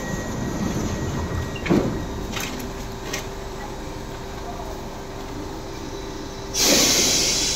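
Bombardier metro train standing at the platform with a steady hum: its doors slide shut with a sharp bang about two seconds in, followed by two short clicks. Near the end a sudden loud rush of noise starts as the train begins to pull out.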